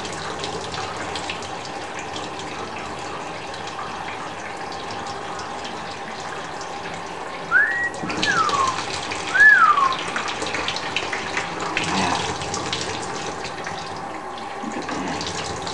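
Water streaming from a small handheld shower head and splashing steadily onto the plastic floor tray of a budgie's cage. About halfway through come three short whistled notes, each rising and falling.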